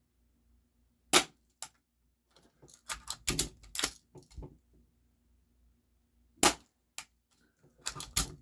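Game Face GFM311 full-metal spring-powered airsoft pistol being cocked and fired: a series of sharp mechanical clicks and snaps with pauses between them. The two loudest snaps come about a second in and about six and a half seconds in.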